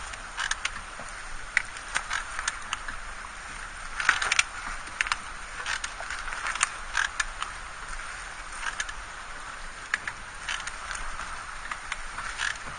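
Turbulent tidal water sloshing and slapping against the hull of a small sailing dayboat, with a steady hiss and frequent irregular splashes and knocks, the strongest cluster about four seconds in.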